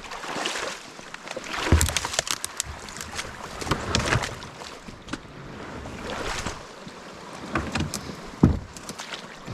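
Kayak moving through very shallow creek water: paddle splashes and several sharp knocks and thumps, the strongest about two, four and eight and a half seconds in.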